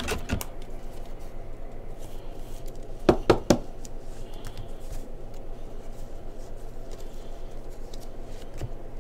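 Hands handling a stack of trading cards on a table, with faint small ticks of cards throughout and a few sharp knocks on the tabletop about three seconds in, over a low steady room hum.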